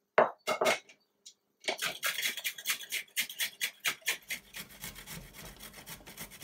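Fresh ginger root being rubbed up and down a metal box grater: a fast, even run of rasping strokes, about five a second, that slowly fade. It opens with a few sharp knocks.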